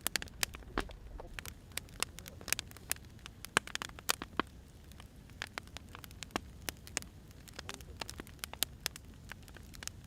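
Wood fire crackling: irregular sharp pops and snaps over a low, steady rumble of burning.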